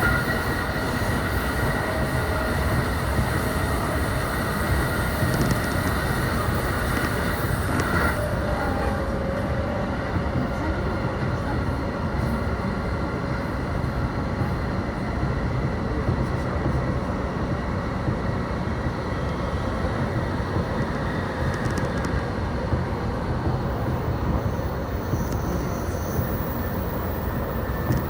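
Electric train running, a steady rumble with high whining tones that fade out about eight seconds in.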